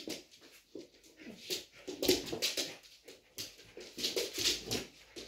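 A red fox and a white fox play-fighting, giving a rapid string of short whining, squealing calls. The calls are sparse at first and come thick and louder from about two seconds in.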